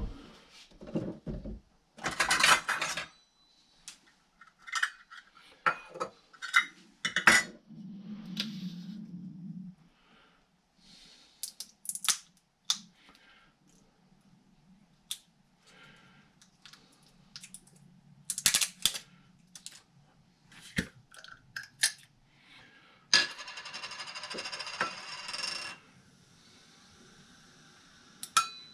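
Kitchen handling sounds while seasoning ribs: scattered clinks, taps and knocks of utensils and containers being picked up and set down. Near the end a steady hiss lasts about three seconds.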